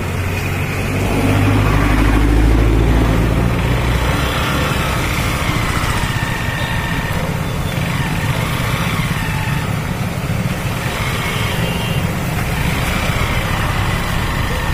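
Motorcycle engine running under way, heard from the bike itself, with steady road noise. The engine is loudest from about one to four seconds in.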